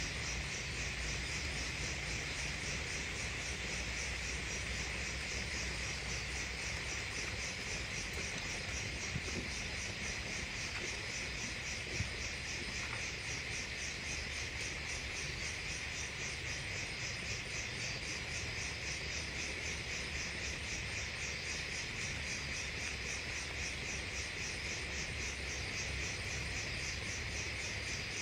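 Night insects, crickets among them, chirring without a break: a steady high-pitched trill with a fast, even pulse. A single faint tap about halfway through.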